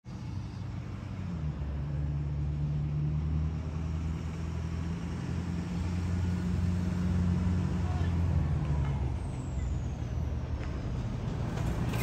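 Lifted Ford F-450 pickup's engine running as the truck drives slowly closer, a low steady drone that grows louder.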